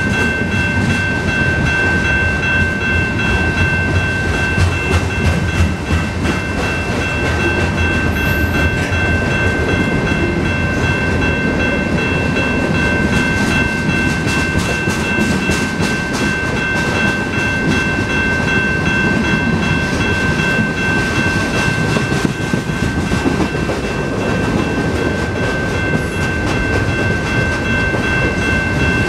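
Freight train cars rolling past at speed: a steady heavy rumble of wheels on rail with clickety-clack over the rail joints. A thin high ringing tone runs under it throughout.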